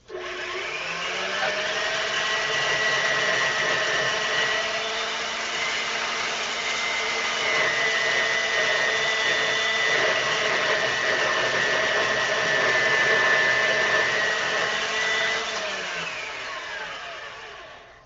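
A handheld power tool's motor spins up with a rising whine, runs steadily for about fifteen seconds, then winds down near the end. It is being used to cut off the filed form-tool blank.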